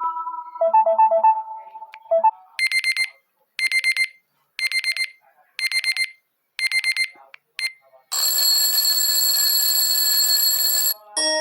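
LG mobile phone ringtones played back to back. The tail of a short electronic melody gives way to clusters of rapid high beeps about once a second, then a harsh steady ringing tone for about three seconds, and near the end a new chiming melody begins.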